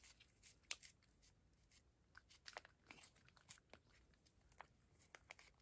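Faint, irregular wet clicks of a cat licking a lickable paste treat from a squeeze packet held in a person's fingers, a few licks a second.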